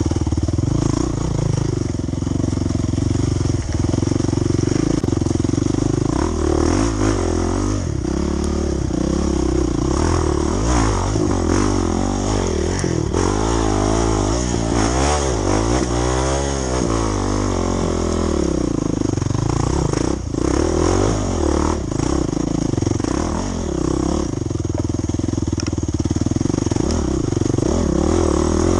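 Off-road dirt bike engine running under load, its revs rising and falling repeatedly, most strongly about halfway through.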